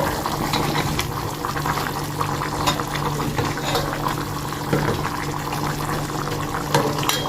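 Pot of chicken stew bubbling as it boils, with a steady low hum underneath.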